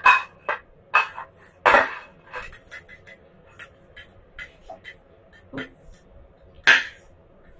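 Irregular clinks and knocks of a ceramic-coated pan being moved on a gas stove's burner grate, with a few louder knocks near the start, a couple of seconds in and near the end.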